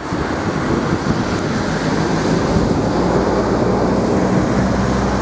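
Strong wind buffeting the microphone: a loud, steady rumble with no break.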